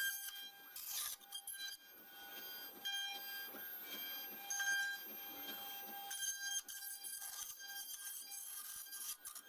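Four-axis CNC router milling a violin neck: the spindle gives a steady high whine over the noise of the cutter in the workpiece, the cutting noise rising and falling as the tool moves.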